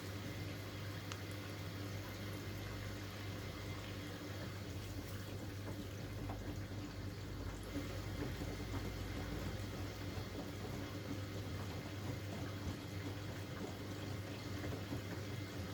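Hoover Axi 9 kg front-loading washing machine taking in water: a steady rush of water filling the machine, with a constant low hum under it.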